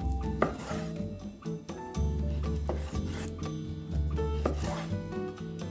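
A kitchen knife cutting raw pork tenderloin on a wooden cutting board, with a few separate strokes scraping through to the board. Background music with a steady bass line plays under it.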